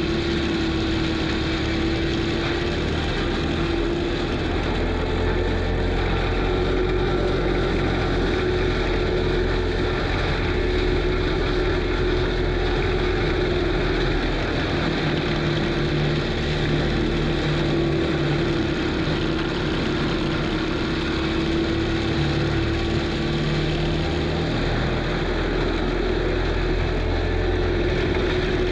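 Kubota SVL95 compact track loader's diesel engine running steadily under load while it drives an FAE forestry mulcher head. A steady whine wavers slightly in pitch over the engine.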